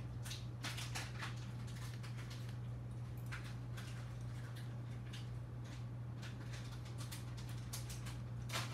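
Steady low hum with scattered light clicks and taps as small electronic parts, wires and a soldering iron are handled on a silicone bench mat.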